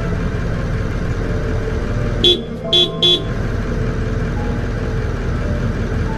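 Vehicle horn honked three times in quick succession, short blasts about two to three seconds in, sounded to scare off a lion, over a steady low background rumble.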